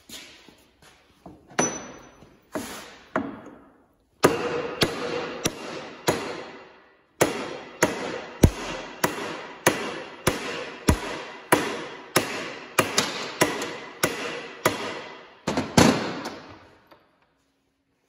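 Repeated hammer blows on a lead slug held against the end of a Hendey lathe spindle, driving against a spindle that will not come out of the headstock. A few spaced blows come first, then a steady run of about one and a half blows a second, each with a short metallic ring, which stops about a second before the end.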